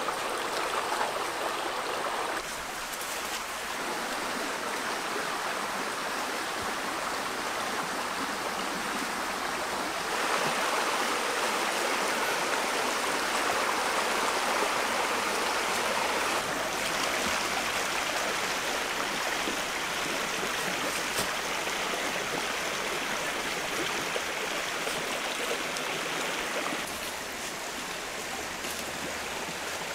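Shallow stream rushing over rocks, a steady running-water hiss that steps louder and softer a few times.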